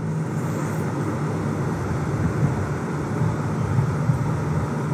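Steady room noise: a continuous low hum under a broad, even rushing sound, with no speech.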